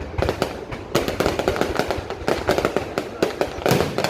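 Fireworks display: a quick, irregular run of bangs and crackles from bursting shells, with a sharper bang about a second in.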